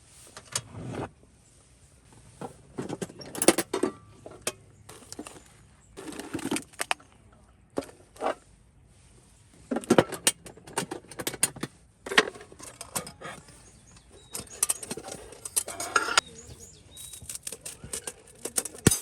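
Irregular clinks, taps and rustles of small objects being handled, in short clusters with brief pauses between them.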